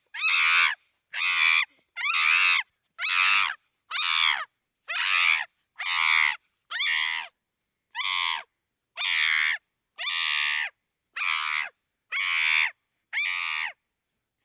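Chimpanzee screaming: a long run of shrill, high-pitched screams, about one a second, each lasting under a second with short silent gaps between.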